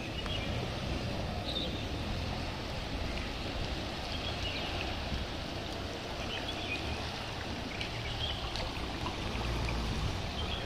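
Steady noise of flowing floodwater, with a low rumble underneath and a few faint high chirps scattered through it.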